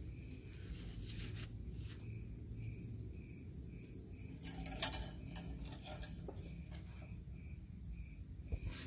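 Faint background with an insect chirping evenly about twice a second over a low steady hum, and a couple of sharp clicks about halfway through.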